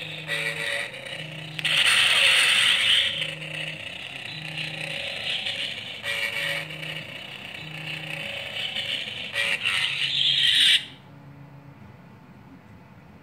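Lightsaber sound board playing a crackling Kylo Ren-style blade hum through the hilt's small speaker, with louder surges of crackle. The hum cuts off suddenly about ten seconds in as the blade is shut off.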